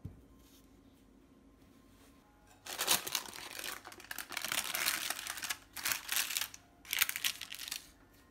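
Baking parchment paper crinkling and rustling in several bursts, starting about three seconds in, as a loaf is lifted out of a metal loaf pan by its paper lining. A brief knock at the very start.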